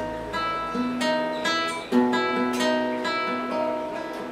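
Nylon-string classical guitar played fingerstyle, an instrumental passage of plucked notes and chords, several a second, each ringing on as the next is picked.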